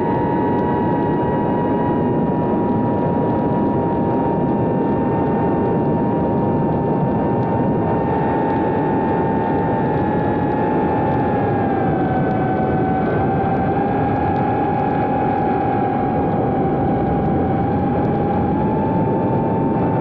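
Brushless motors and ducted three-inch propellers of a GEPRC Cinelog 30 cinewhoop FPV drone in flight: a steady high whine over a rushing wash of prop and air noise. The whine sags slightly in pitch a little past the middle and climbs again near the end as the throttle eases and picks up.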